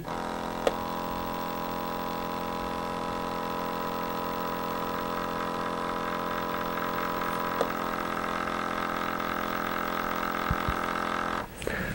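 Small air pump of a gold-film mercury vapour analyser running with a steady, even hum, drawing a timed air sample through a straw held over a mercury amalgam filling. It cuts off near the end as the sampling cycle finishes.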